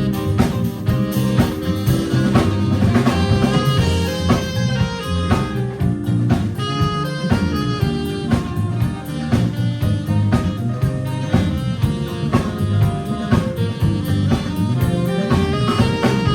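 Live jazz band playing an instrumental: a drum kit keeps a steady beat under guitar and other melodic instruments.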